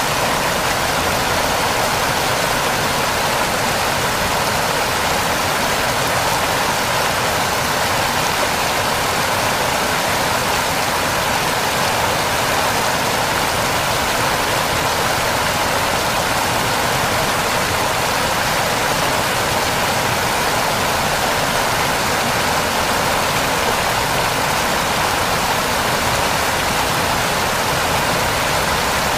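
Waterfall, water rushing and splashing in a steady, unbroken roar of white noise.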